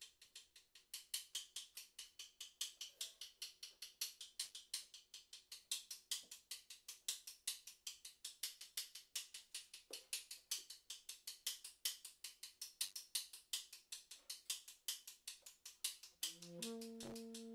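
Drum kit played with sticks in a fast, even stream of bright, ticking strokes, some of them accented, in free improvisation. Near the end a tenor saxophone comes in with held notes that step in pitch.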